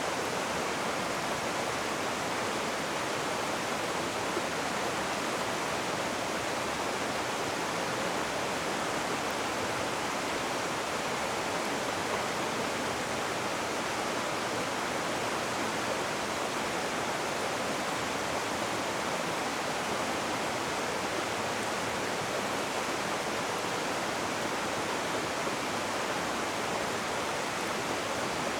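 Rushing river water: a steady, even rush without breaks or changes.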